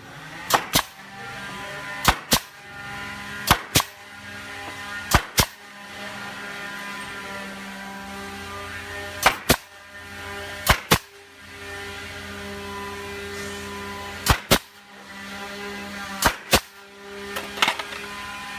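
Sharp knocks struck in quick pairs, each pair a quarter second apart and repeated every one to four seconds, over the steady hum of a running motor.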